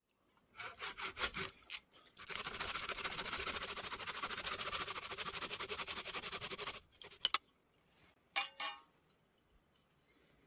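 Hand saw cutting through a turned wooden goblet's foot to part it off the waste block on the lathe chuck. A few separate strokes come first, then about four and a half seconds of quick, steady sawing, then a few short knocks as the cut finishes.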